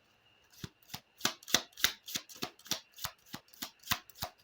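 A deck of divination cards being shuffled by hand: a quick, even run of card snaps, about four a second, starting about half a second in.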